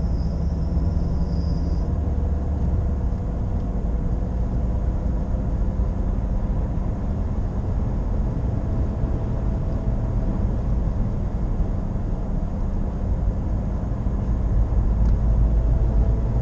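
Nissan Qashqai J11 heard from inside the cabin while driving: a steady drone over the road rumble, getting a little louder near the end. The owner likens it to a wheel bearing and says it follows road speed, not engine revs, but doubts a bearing would fail this early.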